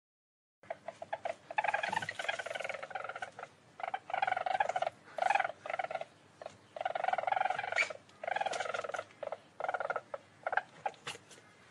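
Least weasel calling: a pitched, rapid chattering in repeated bouts of half a second to a second and a half, with short sharp clicks between them, starting just under a second in.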